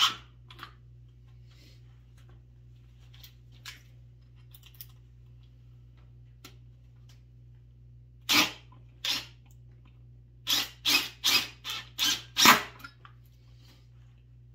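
Milwaukee M18 Fuel Gen 3 impact driver hammering a 4-inch lag screw into stacked lumber in short trigger pulls. One burst comes at the very start, then a few faint handling clicks, then a run of about eight short bursts from about eight seconds in as the next lag is driven down.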